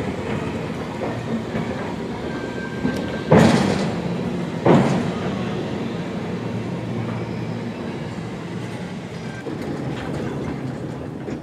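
Vintage double-deck electric tram running on its rails with a steady rumble, and two loud clanks from the wheels on the track about a second and a half apart.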